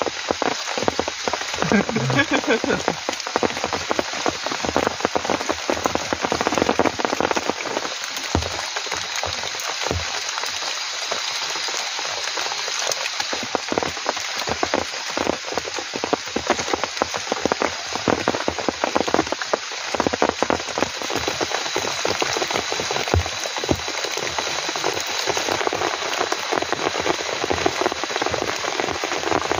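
Heavy rain pattering steadily on a tent, a dense spatter of drops.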